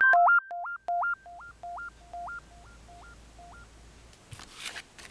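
Electronic intro jingle of pure synthesized beeps, each a low note jumping to a higher one, repeating about twice a second and fading away like an echo. Near the end comes a brief burst of rustling noise.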